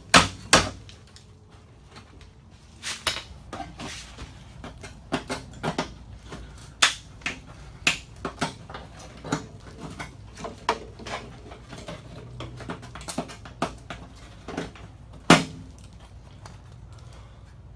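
Irregular metal knocks and taps from working on a Jeep's steel body panels, mostly light taps with a few hard hits at the start and about 15 seconds in.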